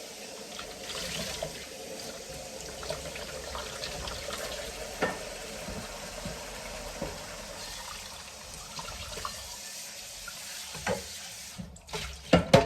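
Kitchen tap running into a sink while a dish is rinsed, with a few light knocks of the dish against the sink. The water stops near the end and a few louder clatters follow.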